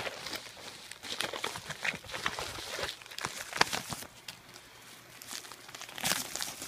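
Crinkling and rustling of a plastic bubble-lined mailer being handled, in irregular bursts.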